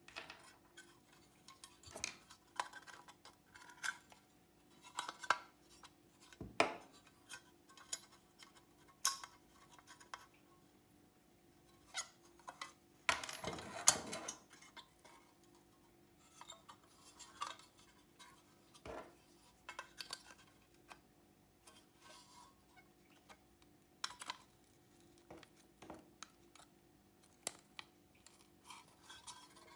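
Irregular clinks, taps and knocks of small metal parts of an old rusty flashlight being handled and worked on, with a scraping rush lasting about a second near the middle.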